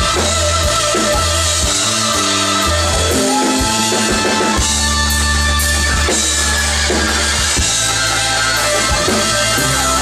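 Live blues band playing: electric guitar lines over bass and drums, with no singing.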